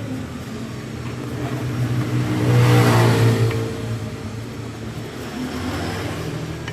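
A motor vehicle's engine running and passing by, growing louder to a peak about three seconds in and then fading away.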